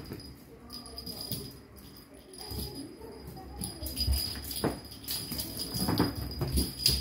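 Kittens pouncing at a wand toy and landing on a fabric sofa cushion: soft thumps and scuffles, a few about four seconds in and more around six seconds, with light jingling throughout.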